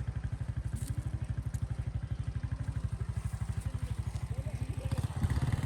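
Scooter engine running steadily while being ridden, an even, rapid putter of exhaust beats that gets a little louder near the end.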